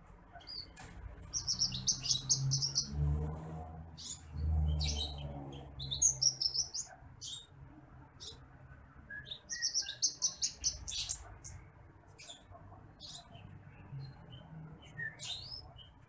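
Caged branjangan apung (titimplik) singing: three bursts of rapid high twittering notes, with single chirps scattered between them. A low rumble sits underneath during the first half.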